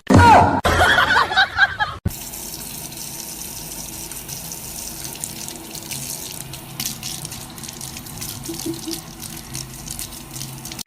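A short loud burst of mixed sound cuts off about two seconds in. A steady rush of running water follows.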